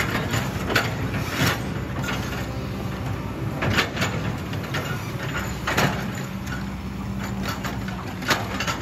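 Kobelco SK200 excavator's diesel engine running steadily under load, with a handful of sharp knocks every second or two.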